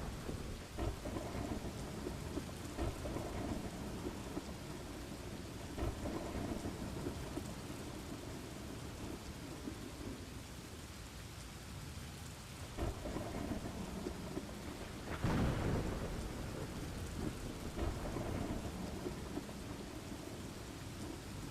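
Steady rain falling with rolling thunder, the rumbles swelling and fading, and a stronger thunder roll about three-quarters of the way through.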